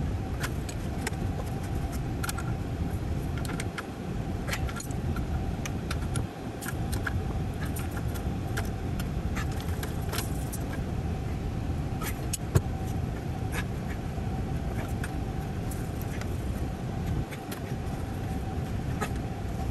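Metal tools clinking and tapping as two adjustable wrenches work the brass flare fitting of a thermostatic expansion valve being tightened, with many scattered clicks and one sharp knock about twelve seconds in. A steady low hum runs underneath.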